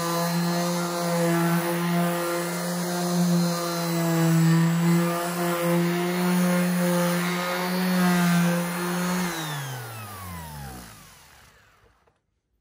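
Worx random orbital sander running steadily with a constant motor hum as it sands a wood panel, on its 240-grit pass. About nine seconds in it is switched off and the motor winds down, its pitch falling until it stops.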